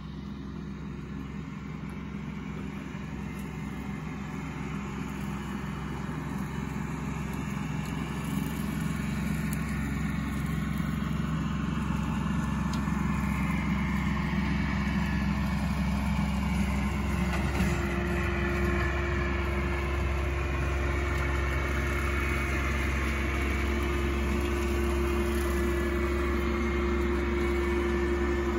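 Tractor engine running while pulling a bush hog (rotary cutter), a steady drone that grows louder over the first half as the tractor comes closer, then holds steady. A steady hum joins about two-thirds of the way in.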